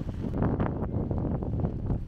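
Wind buffeting the camera microphone outdoors: an uneven low rumble with gusty flutter.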